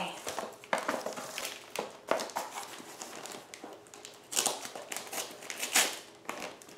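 Gift wrapping paper being handled and unwrapped, rustling in irregular bursts, with a few louder rustles in the second half.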